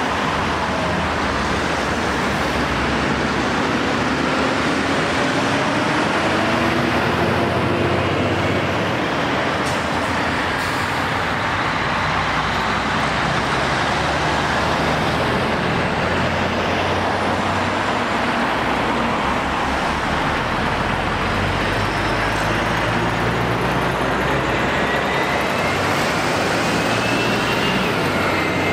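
Road traffic going round a roundabout: cars, vans and lorries, among them an articulated lorry, passing close by as a steady wash of engine and tyre noise, with engine notes rising and falling as vehicles slow and pull away.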